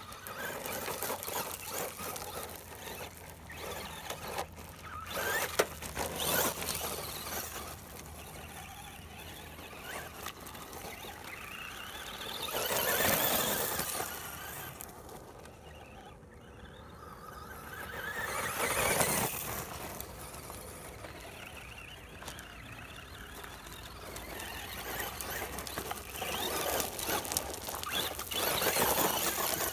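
RC monster truck's motor whining high as it is driven over gravel, swelling and fading as it speeds up and slows, loudest in a few runs around the middle and near the end.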